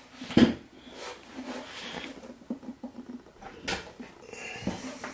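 A plywood speaker cabinet handled and shifted on a table by hand: a sharp knock about half a second in and another near the end, with small scrapes and creaks between.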